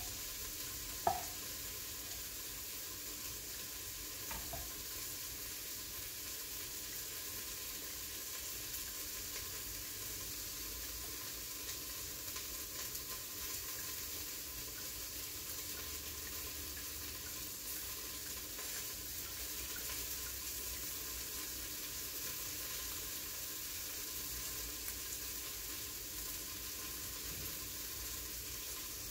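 Steady hiss of steam escaping from an Instant Pot pressure cooker cooking broth, with a chef's knife knocking once on a wooden cutting board about a second in.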